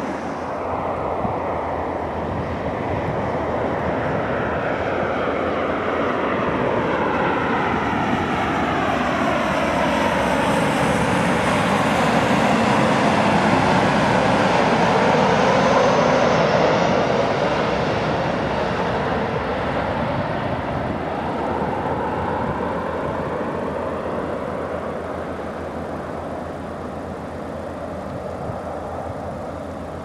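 Boeing 737 jet airliner passing low on final approach with its landing gear down. The jet noise builds to its loudest about halfway through and then fades, with a sweeping, phasing whoosh as it goes by.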